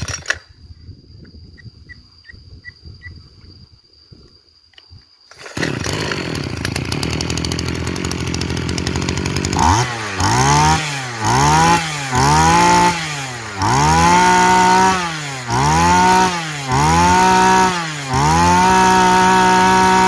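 Small 25cc two-stroke brush-cutter engine starting about five seconds in, idling briefly, then revved about eight times with the throttle, each rev rising and falling in pitch, the last held for a couple of seconds before dropping back. It runs very smoothly.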